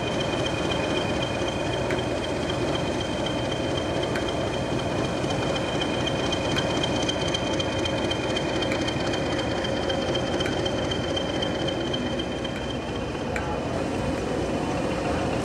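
Diesel locomotives running slowly in a shunting move: English Electric Class 20s and Class 50 50027, a steady engine rumble with a high-pitched whine held throughout that eases near the end.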